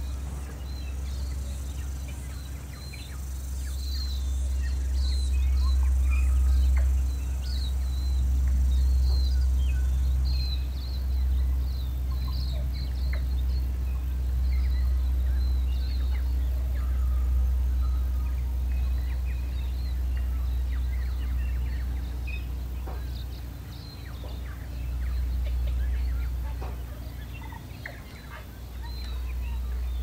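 Outdoor ambience: wind buffeting the microphone in a low, gusting rumble, with birds chirping in short, rapid calls that are busiest in the first half.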